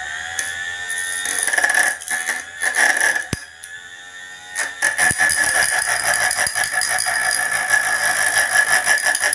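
Homemade angle grinder, a 12-volt 775 DC motor driving a cutting disc, whining as it spins up and then grinding into the copper part of a small motor's rotor in rattling spells. There is a lull about three and a half seconds in, then a steady, rattling grind.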